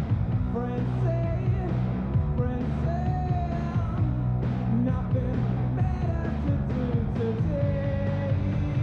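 Rock music with a steady drum beat, heavy bass and a wavering melody line over it.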